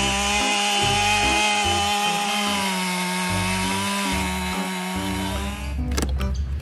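Very large chainsaw's engine running steadily at high speed. It cuts off near the end, giving way to a few sharp knocks.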